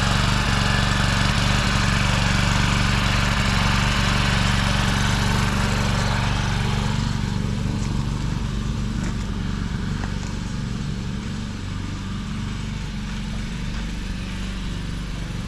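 Small petrol engine of a garden motor hoe (rotary tiller) running steadily while tilling the soil; the higher noise drops a little about seven seconds in.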